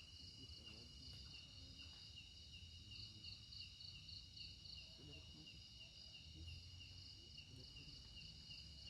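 Faint chorus of forest insects chirping in steady, evenly spaced high-pitched pulses, about three a second, with two pitches layered over each other.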